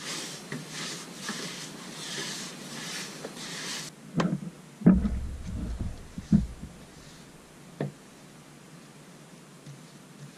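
Paintbrush stroking lime whitewash onto plywood, a scratchy swish repeated about two or three times a second. It is followed by a few sudden low thumps, the loudest about five seconds in, and then faint, quieter brushing.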